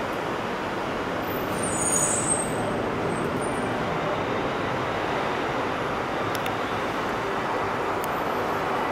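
An R62A subway train on an elevated steel line running away over the track switches, a steady rumble with a brief high squeal about two seconds in.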